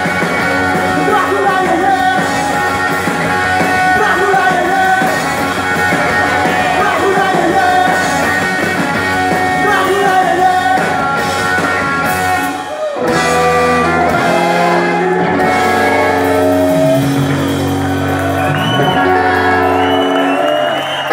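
Live garage rock band playing loud in a large hall, electric guitars, bass and drums under a shouted lead vocal, heard from the audience. About thirteen seconds in the music dips briefly and moves into a section of long held low notes and chord changes.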